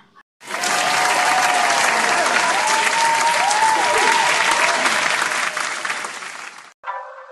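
Crowd applauding and cheering, starting about half a second in and cutting off suddenly near the end.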